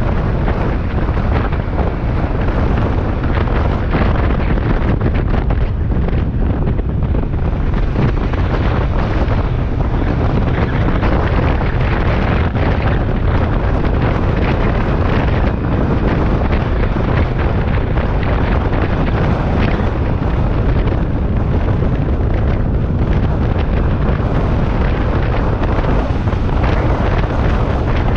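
Steady wind rumble buffeting the microphone over the running noise of a moving vehicle, with no pauses.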